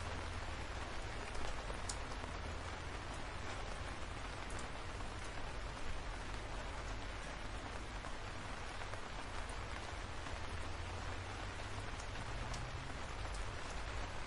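Steady rain falling on leafy trees: an even hiss, with now and then a single louder drop ticking close by.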